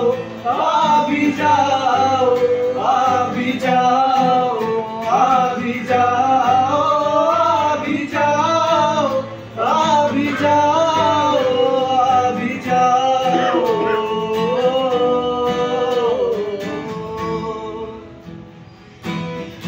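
A man singing a slow song with long held notes while strumming an acoustic guitar; the song grows quieter and trails off near the end.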